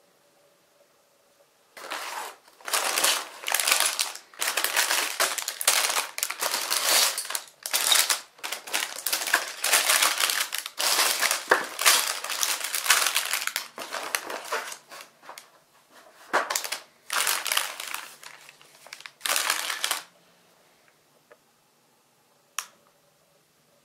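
Clear plastic bags of toy building bricks crinkling in a long run of irregular handling bursts as they are lifted out of a cardboard box and laid out. The crinkling stops about twenty seconds in, followed by a single sharp click.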